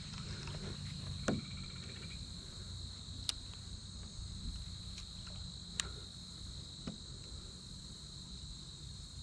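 Steady high-pitched insect chorus, with a few sharp clicks or taps scattered through it, at about one, three and six seconds in.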